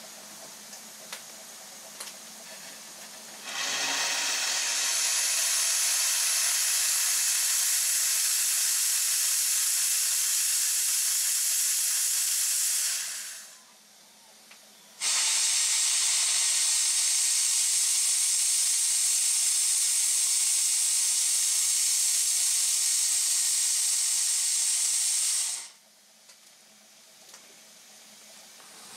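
Steam blasting out from beneath the stationary RSH 0-6-0 saddle tank locomotive NCB No.49 as a loud, steady hiss. It comes in two long releases of about nine and ten seconds, with a pause of a second or two between them.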